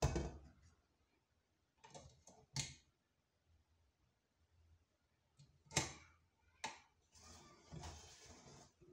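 An aluminium pressure cooker being handled in a stainless steel sink: sharp metal knocks and clicks of the lid, handles and pressure weight, a few seconds apart, then a longer scraping rub near the end.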